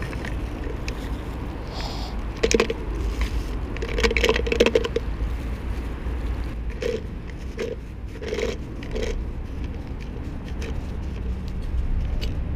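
Used syringes and needle parts being picked out of leaf litter and dropped into a plastic sharps bin, giving several short clattering rattles with plastic-bag rustling in between, over a steady low rumble.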